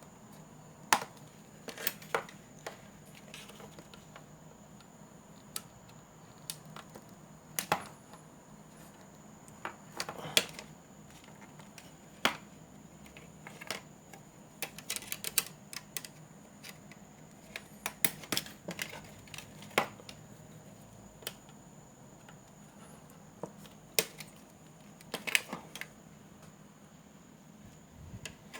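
Irregular sharp clicks and light metallic taps of drop-ceiling grid tees being handled and unlocked from each other, some coming in quick clusters.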